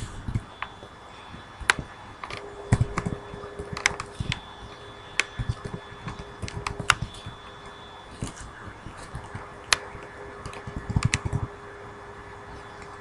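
Irregular keystrokes and clicks on a computer keyboard, over a steady faint hum.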